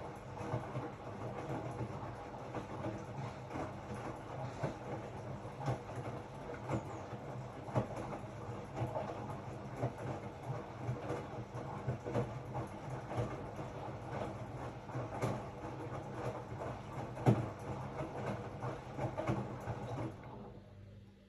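Hotpoint-Ariston RSG 825 J washing machine with its drum turning: a steady motor hum under irregular knocks and clicks from the tumbling load, with one louder knock about three quarters of the way through. The drum stops about a second before the end.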